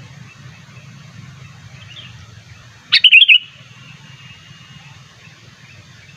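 Sooty-headed bulbul (kutilang) giving a short, loud burst of rapid chattering notes about three seconds in. Fainter chirps come before it, over a steady low hum.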